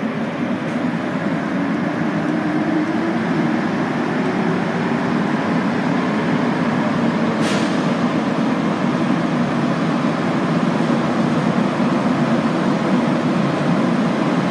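Montreal metro Azur train running on its rubber tyres through the tunnel, heard from inside the car as a steady rumble with a low hum. The noise grows slightly louder over the first few seconds as the train gathers speed. A single short click comes about halfway through.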